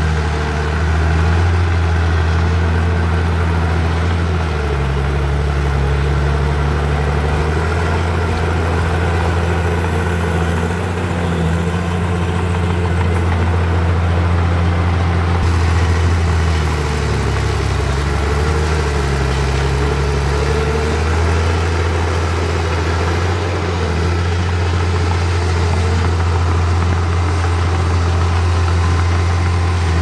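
Heavy diesel engine of earthmoving machinery running steadily, its pitch shifting slightly a few times as the load changes.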